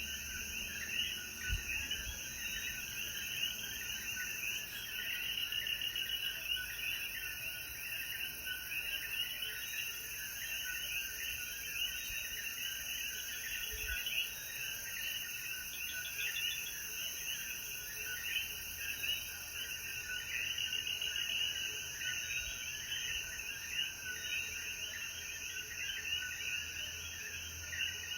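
Dense chorus of many coquí frogs calling over one another, short rising chirps, over a steady high insect buzz.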